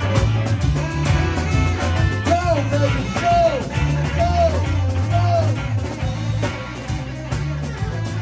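Live blues band playing, with a steady bass line under drums and guitar. From about two seconds in, a lead line of four bending notes repeats about a second apart.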